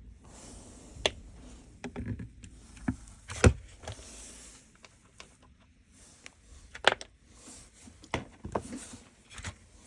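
Scattered small clicks and knocks from the buttons and parts of a car light control switch panel being handled during dismantling, the loudest about three and a half seconds in.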